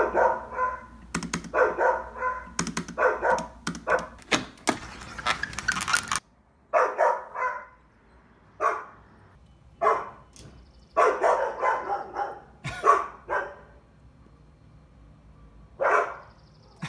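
A dog barking in short barks. They come close together with sharp clicks among them for the first six seconds, then, after a sudden drop, as single barks and short clusters with gaps of a second or more.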